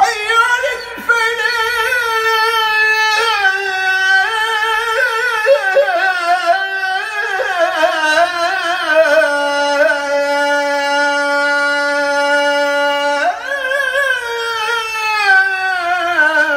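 A man's solo voice chanting Islamic prayer in Arabic, in long, heavily ornamented melodic phrases with one long held note in the middle, echoing through a large mosque hall.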